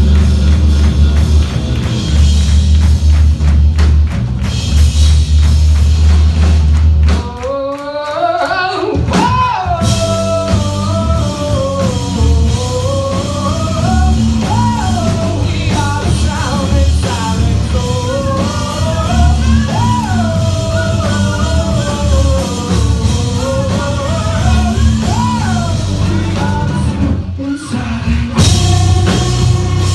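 Live rock band playing: the full band with heavy bass and drums, a brief break about seven seconds in, then a sung melody over quieter backing, with the full band crashing back in near the end.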